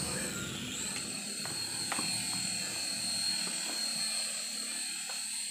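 Small coaxial RC toy helicopter flying, its electric rotor motors whining steadily at a high pitch. The pitch dips briefly about half a second in, then holds steady.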